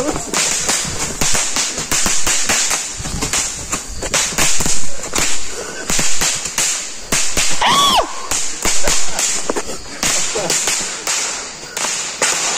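Firecrackers and fireworks going off in a dense, irregular crackle of sharp bangs that goes on without a break.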